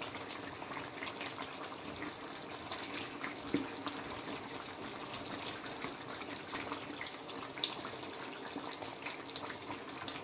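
Wooden spatula stirring thick tomato stew as it simmers in a frying pan: a steady wet bubbling and squelching, with a few sharp clicks.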